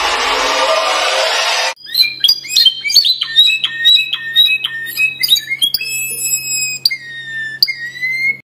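A rushing noise that cuts off sharply just under two seconds in, then a canary singing: fast trills, runs of repeated chirps and gliding whistled notes over a faint steady low hum, stopping abruptly near the end.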